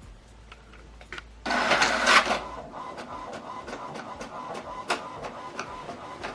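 HP DeskJet 3700-series inkjet printer starting a print, here the back side of a manually duplexed page: a loud whirring burst as the sheet is pulled in about a second and a half in, then the mechanism running steadily with a faint hum and regular ticks of the print carriage.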